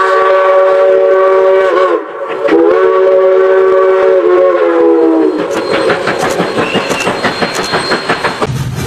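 Chime steam whistle of a Rio Grande narrow-gauge steam locomotive, No. 476, sounding two long blasts, each sagging slightly in pitch as it dies away. This is followed by a rapid clatter of the train running.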